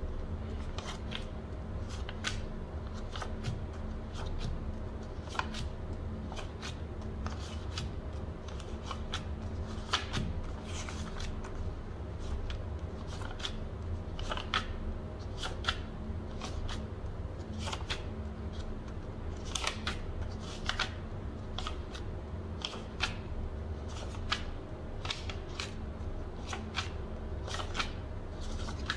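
Stacks of euro banknotes handled and flicked through by hand: irregular crisp paper rustles and snaps, sometimes in quick clusters, over a steady low hum.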